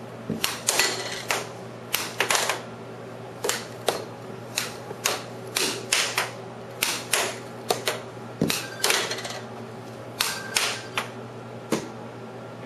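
Air hockey puck and plastic mallet clacking in quick, irregular hits, about two a second, over the steady hum of the air hockey table's blower.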